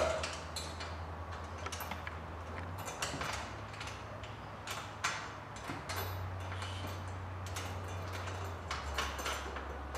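Faint, scattered small clicks and taps of a washer and nut being threaded by hand onto a bolt under a golf cart's body, over a low steady hum.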